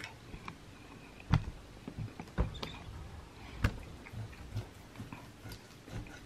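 Knife and fork working against a plate while a steak is cut, with a few sharp clinks of metal on the plate.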